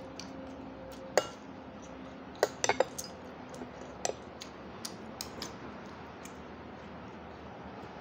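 Metal spoon and fork clinking and scraping against a ceramic plate during a meal, in scattered sharp clinks. The loudest comes about a second in and a quick cluster follows a little after two seconds.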